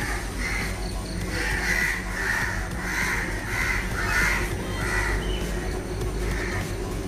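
Crows cawing, a run of repeated harsh calls about one every half-second to second, with a steady low rumble underneath.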